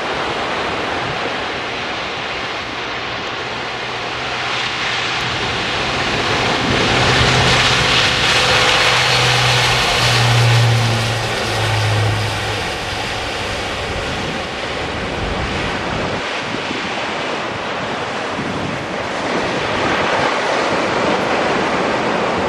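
Airbus A400M's four TP400-D6 turboprop engines at takeoff power on the takeoff run and climb-out: a loud propeller drone that swells as the aircraft passes and drops in pitch, then eases off as it climbs away.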